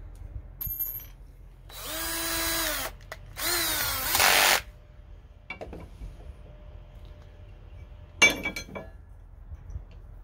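Cordless drill running in two bursts of about a second each with a short gap between, its whine climbing in pitch as it spins up in the second burst. A single sharp clack about eight seconds in.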